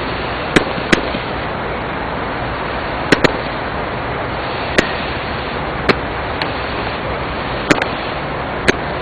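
A 10-shot 'flower' multi-shot consumer firework going off: sharp pops at irregular intervals, about eight of them, two coming as quick doubles, over a steady hiss.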